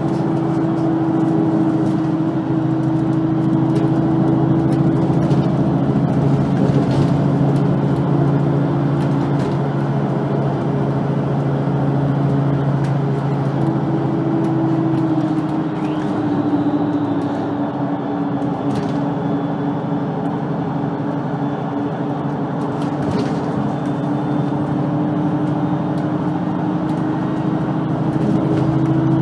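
VDL Citea LLE-120 city bus with its engine running steadily. The engine's pitch eases down about halfway through and rises again near the end.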